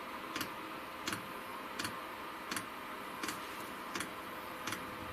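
Chinese 5 kW diesel air heater's fuel dosing pump ticking steadily, about three clicks every two seconds, starting about half a second in, over the steady hiss of the heater's fan. The pump has just begun delivering fuel during the heater's start-up.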